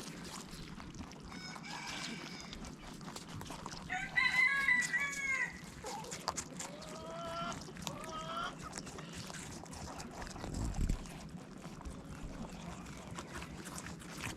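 Chickens calling, with a rooster crowing: a few shorter calls, then a loud, drawn-out crow about four seconds in and more calls after it. A dull low bump comes near the end.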